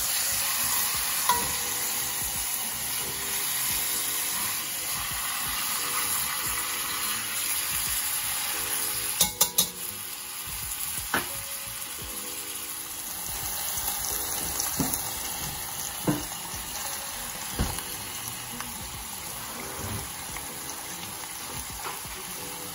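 Pork roast pieces searing in oil in a cast-iron Dutch oven: steady sizzling and frying. Metal tongs clack against the pot a few times, with a quick cluster of clacks about nine seconds in.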